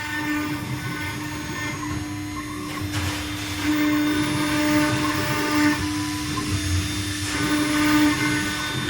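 CNC stone router's spindle running with a steady high whine over a rough grinding noise as the bit cuts stone. The noise grows louder about four seconds in and again near the end.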